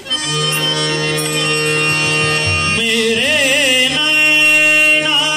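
Harmonium holding a sustained chord, joined about three seconds in by a man singing a wavering, ornamented bhajan line over it.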